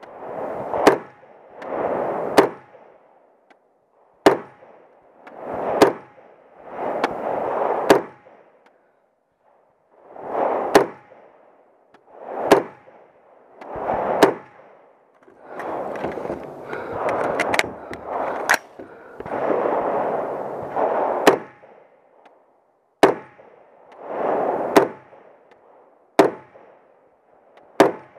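Daytona Tactical AR-15 in .300 Blackout firing 150-grain rounds: a string of single aimed shots, about one every one to three seconds with a few longer pauses. A hiss swells up between many of the shots.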